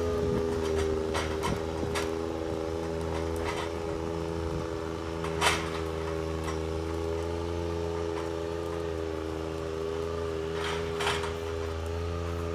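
Alstor 821 miniforwarder's diesel engine running steadily as the eight-wheeled machine drives over brush. A few sharp snaps break in over it, the loudest about halfway through.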